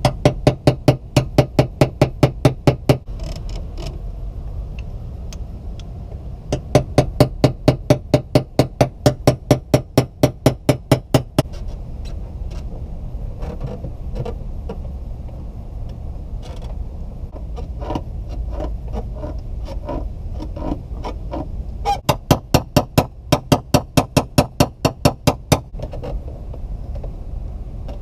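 Rapid light hammer taps on a paintless-dent-repair knockdown punch held against a car's steel fender, about five taps a second in three runs of a few seconds each, tapping down high spots in the panel. Between the runs come fainter, scattered clicks, over a steady low rumble.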